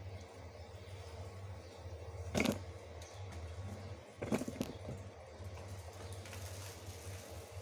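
A cloth wiping a kitchen counter, with two short louder scrapes about two and a half and four and a half seconds in, over a steady low hum.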